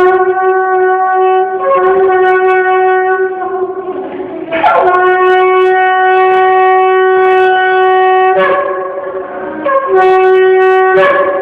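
Shofar blown in a series of loud, sustained blasts, the longest held for about four seconds in the middle. Between blasts the note breaks and briefly shifts pitch before settling back.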